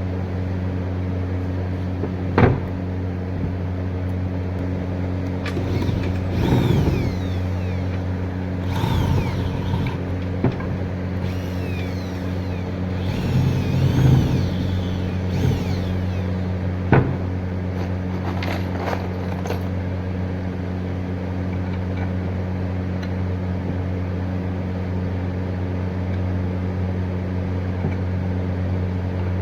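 Electric motor of a woodworking machine running steadily with a constant hum. Two sharp knocks and a few short scraping passes sound over it, the loudest between about 6 and 16 seconds in.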